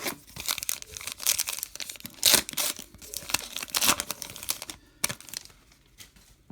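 A baseball card pack wrapper being torn open and crinkled: a busy run of crackly rips and rustles for about five seconds, then a few light clicks.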